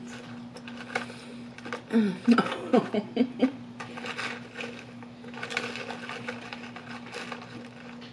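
Close-up eating sounds of a Big Mac and fries: chewing and wet mouth clicks over a steady low electrical hum. A brief wordless voice sound about two seconds in is the loudest part.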